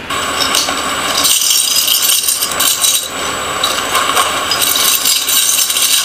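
Metal jewellery jingling and rattling as it is gathered and wrapped in a cloth bundle, with the cloth rustling: a busy, uneven clatter of many small clinks.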